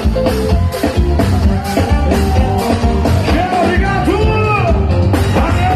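Dance song playing, with a singing voice over a steady, driving beat and strong bass.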